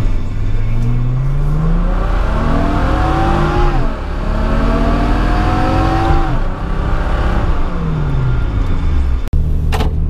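Nissan 300ZX's 3.0-litre V6, heard from inside the cabin, revving up under acceleration with a sudden drop in pitch about four seconds in as it shifts up. It then pulls up again and falls in pitch as the driver eases off, and cuts off abruptly near the end before running steadily.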